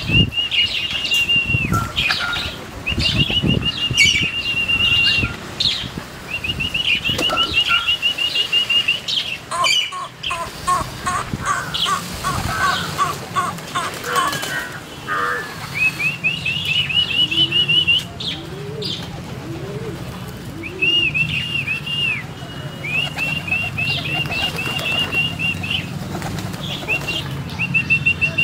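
Domestic pigeons flapping their wings as they gather on the ground, with a few low coos about two-thirds of the way through. Over them, a bird repeats quick high chirping trills every few seconds, and a run of quick mid-pitched calls comes around the middle.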